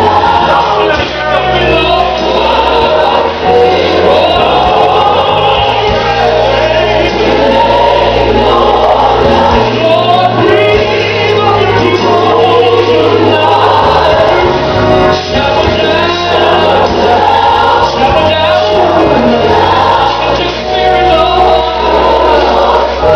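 Gospel music: a choir singing over a band with a steady bass.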